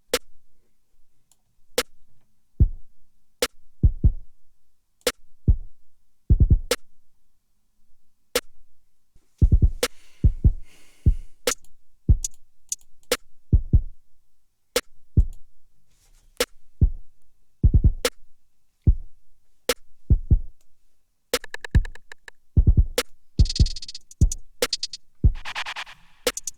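Drum-machine beat from Maschine drum samples: short sharp hits at a steady pulse about a second apart, deep kick drums placed at uneven, random spots, and fast rolls of rapid hits near the end.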